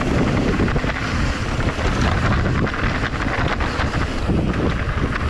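Wind buffeting the action camera's microphone while a mountain bike runs fast down a dirt trail, tyres rumbling over the ground, with many small knocks and rattles from the bike over bumps.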